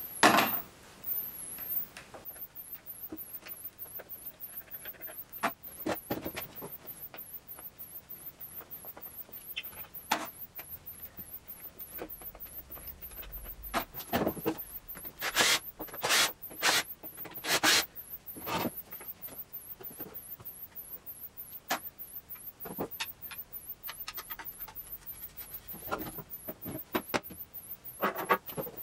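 Work on a wooden bentwood chair: scattered knocks and clicks with short scraping or rubbing bursts, the busiest stretch about halfway through.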